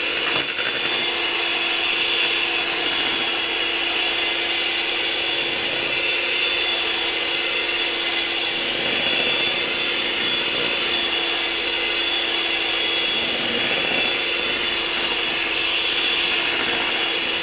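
Clikon electric hand mixer running steadily, a constant motor whine with its beaters whisking a milk-and-cream ice cream mixture in a plastic basin until it nearly turns frothy.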